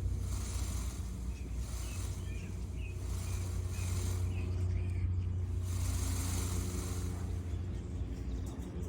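Peacock shaking his raised train, the feathers giving a dry, shivering rattle in repeated bouts a second or two apart. A steady low rumble runs underneath, and small bird chirps come through in the middle.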